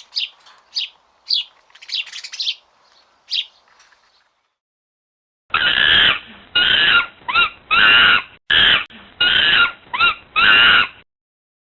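Songbird chirping in short, quick notes for about four seconds. After a brief gap come eight loud, harsh squawks from a larger bird, each lasting under a second.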